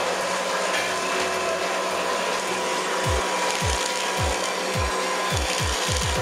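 Log-rounding machine's rotating cutter head milling a log into a cylinder: a steady, dense cutting noise with a steady whine. From about three seconds in, short low falling thumps repeat, coming faster and faster toward the end.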